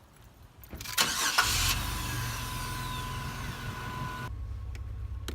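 Car engine cranked by the starter about a second in, catching and settling into a steady idle. A steady high tone sounds alongside for about three seconds after the start.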